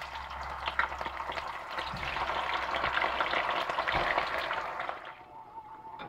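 Chunks of smoked turkey dropped into a pot of hot oil, the oil frying with a dense sizzle and crackle. The sizzle builds as more pieces go in, with a soft thump about four seconds in, then dies down about five seconds in.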